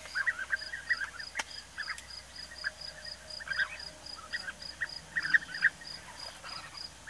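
European bee-eaters calling: short rolling calls that come in quick clusters and overlap, with a high pulse repeating about three times a second behind them.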